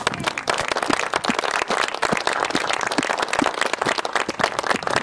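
Audience applauding, a steady spatter of hand claps.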